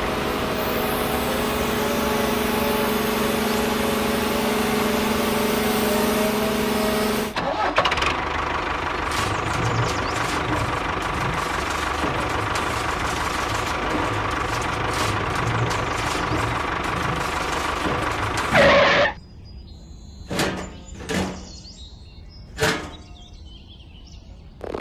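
A motor runs steadily with an even hum. About seven seconds in its sound changes to a rougher, noisier running. It stops abruptly near the end, followed by a few sharp clicks.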